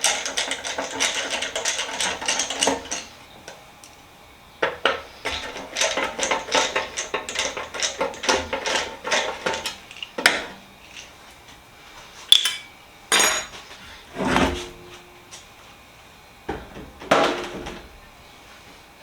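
Small metal screws and drawer hardware from a steel tool box clinking and rattling as they are handled and taken off: two runs of quick clicks, then a few separate knocks.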